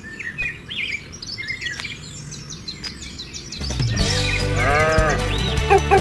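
Birds chirping; then, about two-thirds in, background music with a steady bass comes in and an animal bleats once over it.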